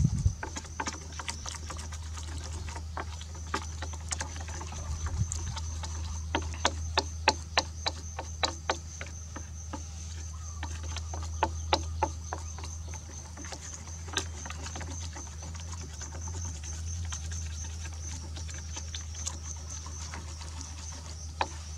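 Wooden chopsticks stirring wet flour batter in a stainless steel tray, with many short clicks and scrapes of wood against the metal. The clicks come thickest in the middle and sparser towards the end.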